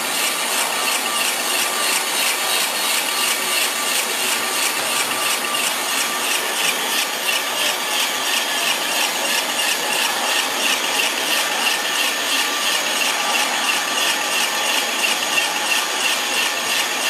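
Single screw snack-food extruder running steadily, with freshly puffed snack pieces spilling out onto the pile. It makes a dense, even noise with a fine rapid rattle that does not change.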